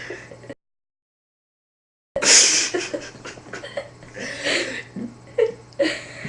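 About half a second in, the sound cuts to dead silence for about a second and a half; then a man laughs and breathes in short, irregular bursts.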